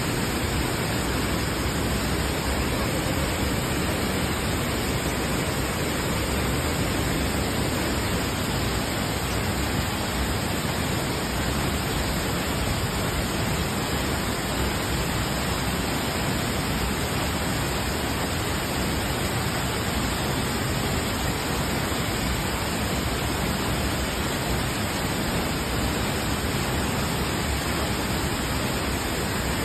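Steady rushing of Cedar Falls, a waterfall pouring into its plunge pool, an even, unbroken noise.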